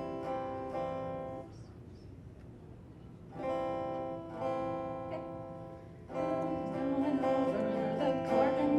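Acoustic guitar strumming ringing chords as a song intro, with a short lull in the middle; a voice starts singing over the guitar about six seconds in.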